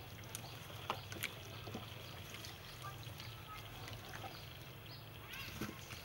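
Soft wet squelching and squishing as pork pieces are kneaded in a sticky marinade by a plastic-gloved hand in a stainless steel bowl, with scattered small clicks over a steady low hum.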